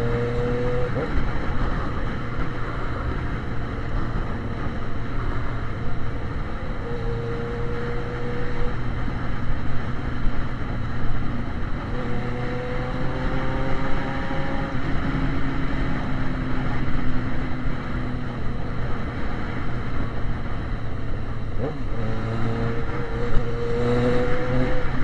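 Yamaha XJ6's 600 cc inline-four motorcycle engine running through a straight pipe with no muffler while riding, a steady low drone with its pitch rising several times as it accelerates.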